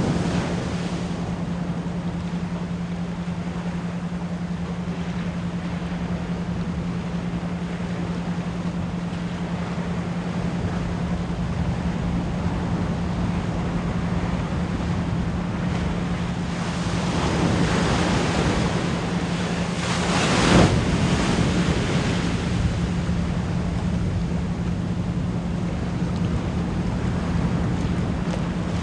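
Ocean waves washing in steadily under a constant low 174 Hz pure tone. The surf swells about two-thirds of the way through, with one wave breaking loudest.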